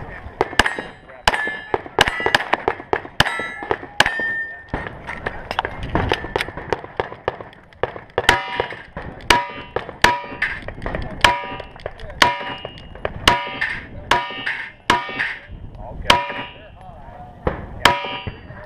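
Pistol shots at steel targets, each sharp crack followed by the clang and ring of the struck steel plate, about one a second through the string of fire.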